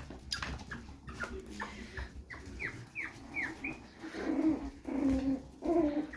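Chihuahua puppies squeaking: a quick run of short, high, falling squeaks, then lower whining cries in the second half, with a few light clicks early on.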